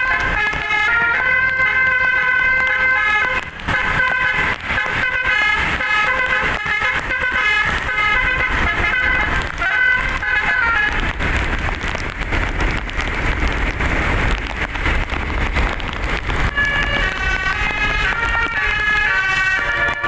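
Tour bus's multi-trumpet musical air horn (telolet basuri) playing a tune in stepped, held notes, several tones sounding at once. About eleven seconds in the tune stops and a rushing noise fills a few seconds. Then the horn tune starts again a few seconds before the end.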